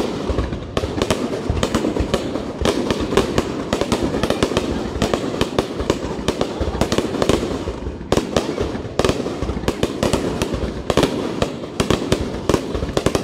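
Aerial fireworks display: a dense, rapid string of sharp bangs and crackles, several a second, over a continuous rumble.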